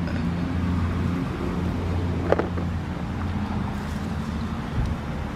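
Steady low hum of an engine or motor, with one sharp click a little over two seconds in.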